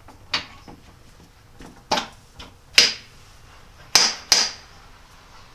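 Steel jaw and parts of a 4-jaw geared scroll lathe chuck clinking and knocking together as the next jaw is handled and fitted: about five sharp metallic knocks with a short ring, the last two close together.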